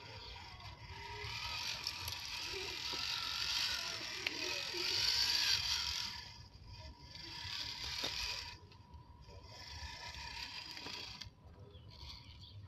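Small electric motor and gearbox of a homemade 1:10 scale RC rock crawler whirring as it crawls over mud, roots and a log, stopping and starting several times as the throttle is let off and applied again.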